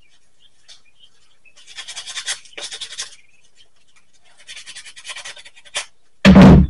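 Sanding a cast resin piece: two spells of quick scratchy strokes, each about a second long, with a few light ticks between them. Near the end comes a short, very loud thud.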